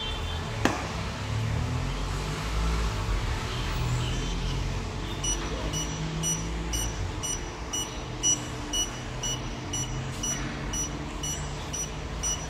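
Card-payment kiosk's reader beeping repeatedly, short high beeps about twice a second, from about five seconds in until the card is pulled from the slot near the end. There is a single sharp click about a second in, over low background rumble.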